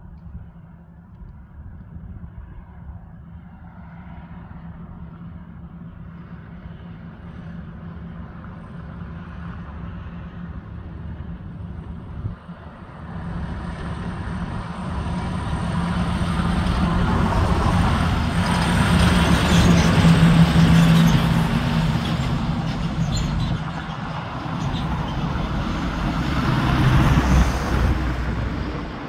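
Heavy diesel trucks passing on a downhill highway: a low engine rumble, faint at first, grows steadily louder as a semi-trailer tanker truck approaches and passes, loudest a little after halfway, then a second truck swells up again near the end.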